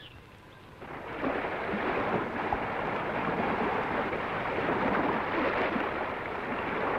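Steady rushing sound of sea waves and wind, a sound effect for a sailing ship at sea, coming in about a second in.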